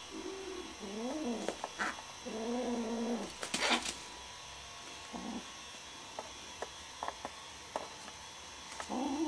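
Kittens growling and yowling in several drawn-out calls, some bending up and down in pitch, with a short noisy burst about three and a half seconds in and a few light clicks after it; another call rises near the end. The sound is typical of a kitten guarding prey, here a caught gecko, from its littermates.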